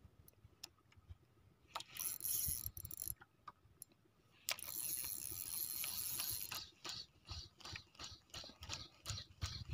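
Fishing reel being worked, faint mechanical clicking that settles into a steady run of about three or four clicks a second in the second half.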